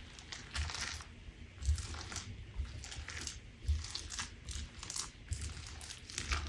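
Crunch slime being pressed and squeezed by hand, giving repeated crisp crunching and crackling with soft thumps about once a second.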